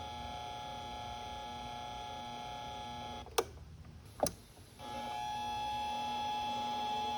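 Mini-lathe motor running steadily with several tones, cut off about three seconds in with a sharp click; after a second click it starts again and runs a little louder.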